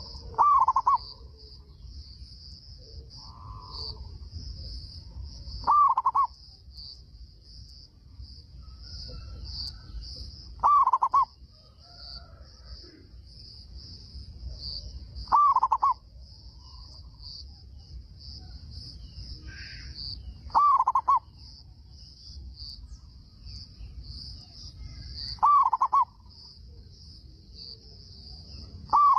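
Zebra dove (perkutut) cooing, a short loud call repeated about every five seconds, seven times: a bird singing often and strongly (gacor). A steady high-pitched buzz runs underneath.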